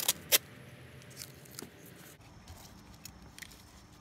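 Masking tape being handled and pressed down onto a hard plastic ball: two sharp snaps right at the start, then a few faint crackles.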